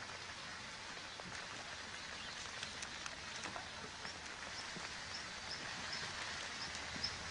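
Steady outdoor hiss with faint scattered ticks. From about four seconds in, a short high chirp repeats roughly twice a second.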